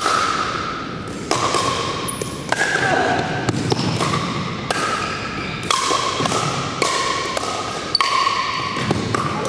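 Pickleball paddles hitting a hard plastic pickleball during rallies: sharp, hollow pocks about once a second, each ringing on in the echo of a large gymnasium.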